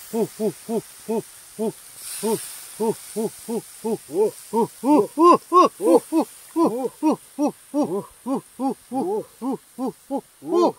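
A rapid run of short hooting calls, about three a second, each note rising and then falling in pitch. Some calls overlap at different pitches, as if from more than one animal, and they are loudest in the middle.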